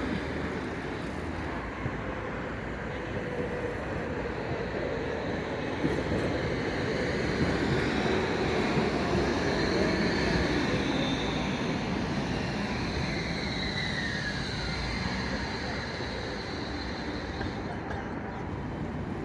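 Street traffic running steadily, with one vehicle passing by about two-thirds of the way in, its pitch falling as it goes.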